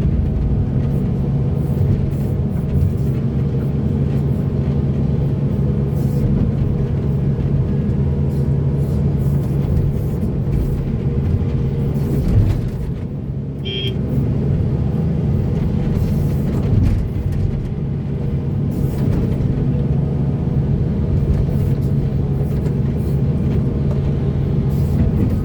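Heavy diesel engine of earthmoving machinery running steadily, a constant low drone. A brief high-pitched chirp about halfway through.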